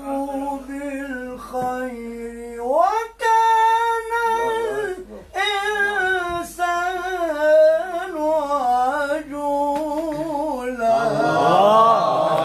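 A male Quran reciter chanting unaccompanied in the melodic mujawwad style. He sings long melismatic phrases of held, ornamented notes, stepping up to a higher held note about three seconds in, then winding down over the next phrase. Near the end a burst of listeners' voices breaks in.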